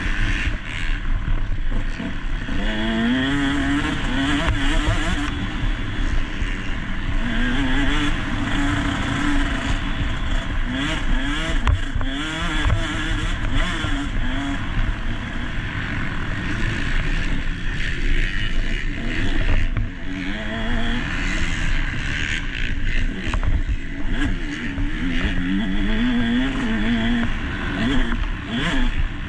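Motocross bike engine running hard, its pitch rising again and again as the throttle opens and the gears change, picked up by an onboard GoPro along with a steady rush of noise.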